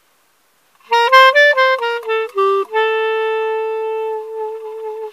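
Solo clarinet played inside a car: after about a second of quiet, a quick run of short notes, then one long held note.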